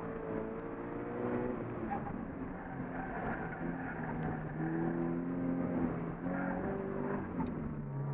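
2015 Scion FR-S's 2.0-litre flat-four engine under hard driving, heard from inside the cabin; its note rises and falls again and again as the car accelerates and lifts off between the cones of an autocross course.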